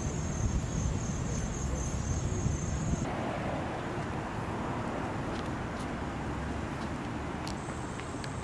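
Outdoor ambience: a low wind rumble on the microphone under a high, steady insect drone that cuts off about three seconds in and returns near the end, with a few faint taps.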